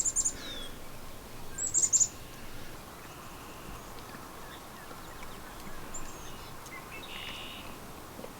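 Small birds chirping: a quick run of high, falling notes at the start and another about two seconds in, with fainter calls later.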